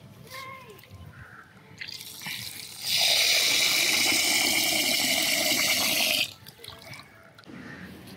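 Water pouring steadily into a vessel for about three seconds, starting about three seconds in and cutting off just after six seconds. Faint handling sounds come before and after.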